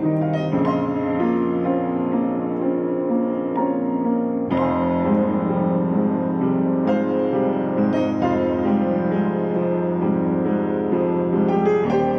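Piano played with both hands: a flowing run of sustained notes and chords, with a fuller, deeper chord struck about four and a half seconds in.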